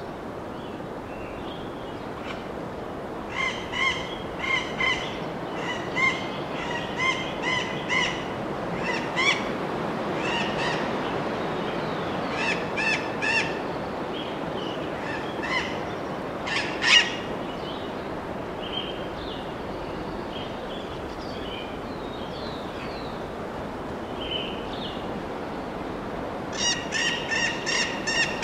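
Birds calling: runs of short, quickly repeated pitched notes that come and go, loudest about two-thirds of the way through and building again near the end, over a steady background rush.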